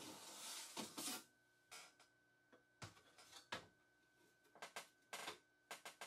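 Mac Pro's aluminium processor-and-memory tray sliding out of the case with a scrape, then scattered metallic clicks and knocks as it is handled and set down on the desk.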